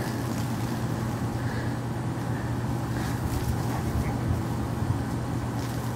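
Steady low motor hum with a faint rushing noise over it.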